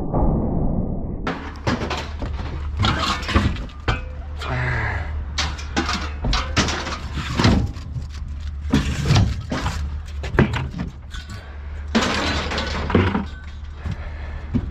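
Scrap metal clanking and crashing piece after piece as it is thrown off a truck onto the scrapyard pile, in irregular bangs starting about a second in, over a low steady hum.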